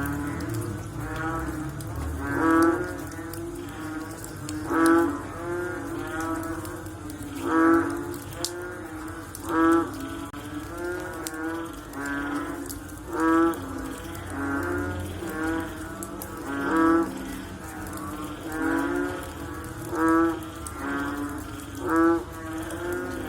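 Frogs calling after rain: a loud, pulsing call repeats about every two seconds, with other frogs answering more faintly in between.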